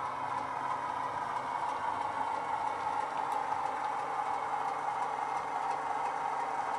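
Sound-decoder recording of a Class 33's Sulzer diesel engine running steadily as the OO-gauge model locomotive moves under power, played through the model's small onboard speaker, with faint clicks.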